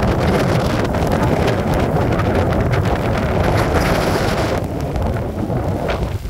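Strong storm-force gusts of wind buffeting the microphone with a loud, continuous rumble. The hiss in the upper range drops away about four and a half seconds in as the gust eases slightly.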